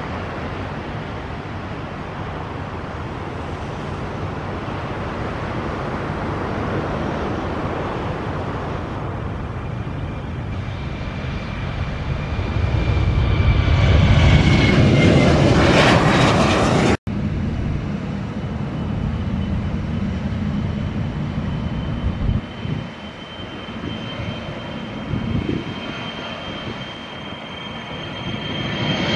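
Airliner engines at takeoff power: the roar swells to its loudest about two-thirds through, with a high whine that falls slightly in pitch, then cuts off abruptly. A second airliner's engines follow with a steady high whine, growing louder near the end.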